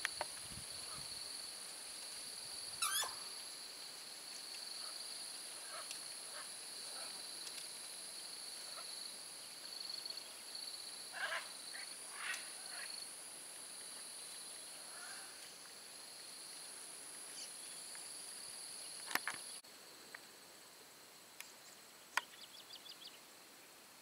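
A steady, high insect drone at two pitches, with scattered short bird calls over it. The drone cuts off suddenly about twenty seconds in, leaving a few faint clicks and a quick run of ticks.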